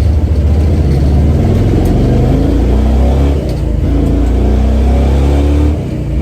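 1970 Chevy Nova engine pulling hard under full acceleration through its four-speed manual, rising in pitch, dipping briefly about three and a half seconds in as it is shifted up, then climbing again until the throttle comes off near the end.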